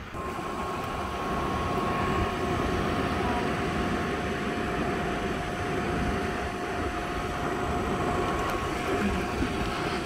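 Furnace blower motor starting up and then running steadily: a rush of moving air with a steady two-note whine. It gets louder over the first couple of seconds.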